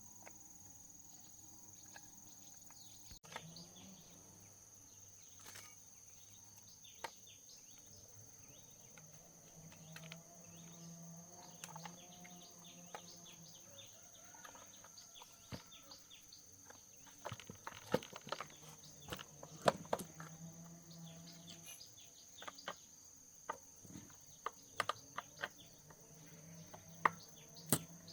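Faint scattered clicks and small knocks, as of hand tools and parts being handled, becoming more frequent in the second half. Under them a steady high insect drone.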